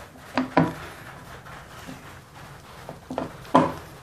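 Metal clutch cover of a Bajaj Pulsar engine knocking against the crankcase as it is worked by hand onto its dowel pins and kick shaft: a few short clunks, a pair about half a second in and a louder pair near the end.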